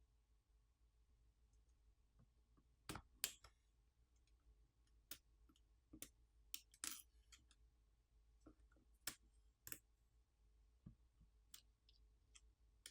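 Light clicks and taps of small tools and parts being handled while taking apart a tablet: about a dozen short, sharp ticks at uneven intervals, starting about three seconds in.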